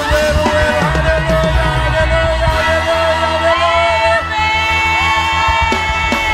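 Live worship music: a band with a steady drum beat and heavy bass under singing, with long held notes that slide up into the next note, and a crowd shouting along.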